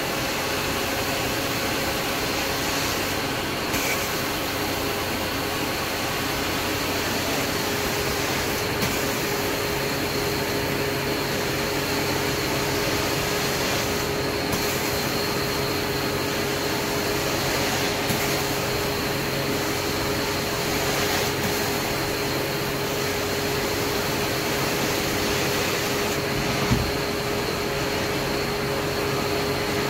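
Carpet-cleaning extraction machine running steadily: a constant vacuum rush with a steady whine. A single light knock comes near the end.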